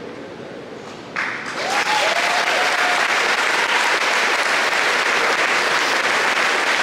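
Audience applause breaking out about a second in, swelling quickly and then holding steady.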